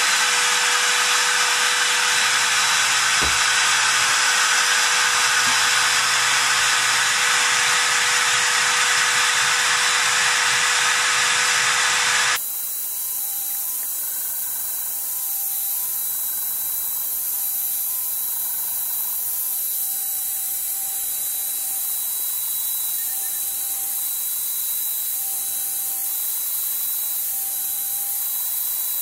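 Makita compact router running at full speed as a CNC spindle: a loud, steady high-pitched whine with air noise, cutting holes in a wooden plate. About 12 seconds in the sound drops abruptly to a quieter steady run, with short whines coming and going as the stepper motors move the axes between holes.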